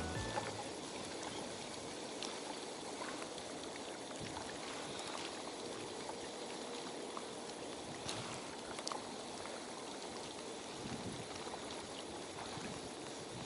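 Steady water noise at the water's edge, washing or lapping without letup, with a few faint clicks scattered through it.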